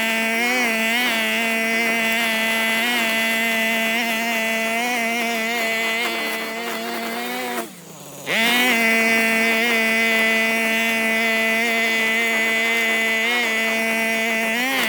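Petrol brush cutter's small two-stroke engine running at high speed with a slight waver in pitch. About eight seconds in it briefly drops away and falls in pitch, then picks straight back up.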